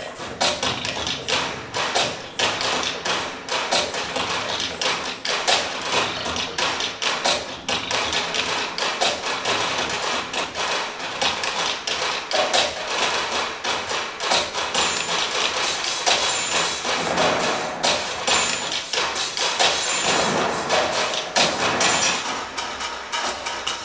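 Rapid, irregular clicking and knocking, many hits a second, densely layered like a percussive soundtrack.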